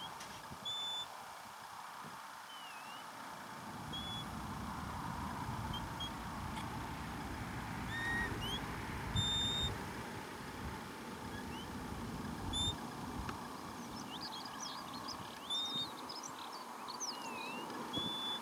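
Wind rumbling on the microphone, with short high whistled notes and chirps scattered throughout, some repeating at the same pitch, and a quick flurry of them about three-quarters of the way through.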